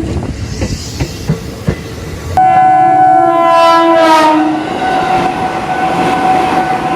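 Train wheels knocking over rail joints with a rumble. About two and a half seconds in, a train horn starts abruptly and holds a long blast, its pitch dropping partway through as the train passes.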